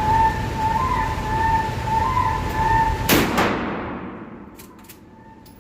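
A single shot from a Mossberg 590A1 12-gauge pump shotgun loaded with deer slugs, a sharp crack about three seconds in that rings off. A steady wavering high tone, like a distant siren, runs under it.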